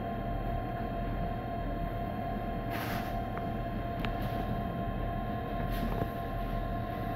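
Passenger train running slowly, heard from inside the carriage: a steady rumble with a high hum over it. There are two short hisses about three and six seconds in, and a single click between them.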